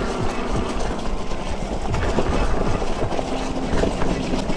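Wind buffeting the microphone over the low rumble of an ENGWE E26's 4-inch-wide fat tires rolling across grass, with irregular soft thumps from the uneven ground.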